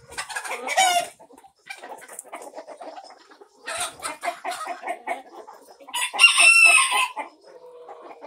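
Flock of barn chickens clucking, with a rooster crowing once about six seconds in, the loudest sound. A shorter loud call comes in the first second.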